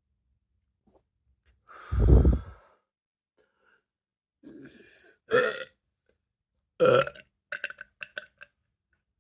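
A woman belching up ginger-ale gas: one long, deep, loud burp about two seconds in, then shorter burps around five and seven seconds, with a few small throat sounds after.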